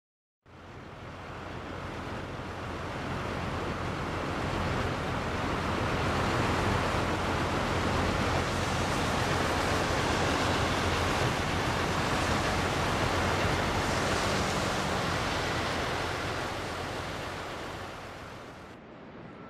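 Steady rushing roar of Niagara Falls, fading in over the first few seconds and easing off near the end.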